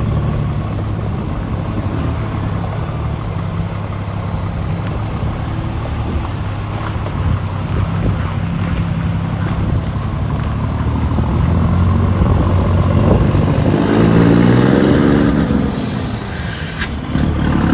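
Heavy diesel truck engine running steadily, then growing louder, its note rising and falling about three-quarters of the way through. A short hiss of air comes near the end.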